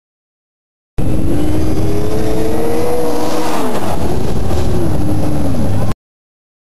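Snowmobile engines running hard as sleds ride past, the pitch climbing and then falling away twice. The sound cuts in suddenly about a second in and cuts off about a second before the end.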